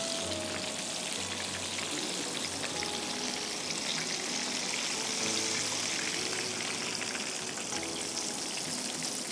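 Flour-and-cornflour-coated chicken breast fillet deep-frying in hot oil in a pan, a steady crackling sizzle.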